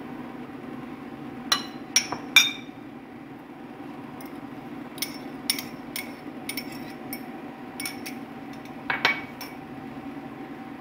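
Small ceramic bowls clinking and tapping against the rim of a larger china bowl as marinade ingredients are tipped out of them. Three sharp clinks come in the first few seconds, the last the loudest, then a run of lighter clicks and another clink near the end, over a steady low hum.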